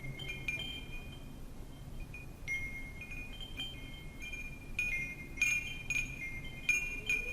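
Wind chimes tinkling in the wind: high ringing notes struck at irregular moments, coming thicker about five to seven seconds in, over a steady low wind rush.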